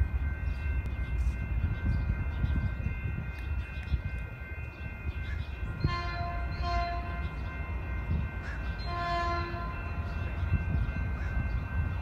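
Approaching Caltrain commuter train sounding its horn: two short chord blasts about six seconds in and a third about three seconds later, over a steady low rumble.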